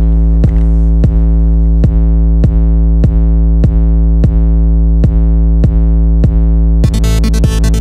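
Electronic background music: a held synthesizer chord over a heavy bass, with a steady drum-machine beat about every two-thirds of a second, breaking into a fuller, denser section about seven seconds in.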